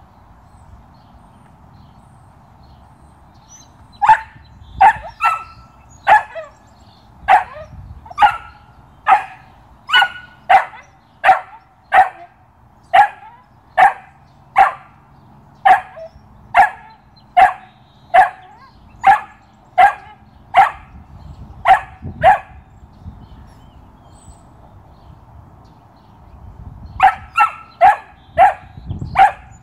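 A Belgian Malinois puppy barking over and over in sharp, high single barks, about one a second. After a pause of a few seconds the barking resumes, faster, near the end.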